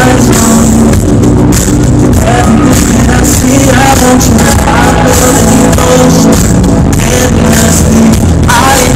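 Loud live hip-hop music: a rapper's vocals over a beat through a concert sound system, heard from among the audience.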